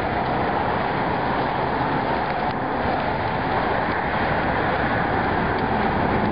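Steady rushing noise of a thunderstorm, even in level throughout, with no distinct thunderclap.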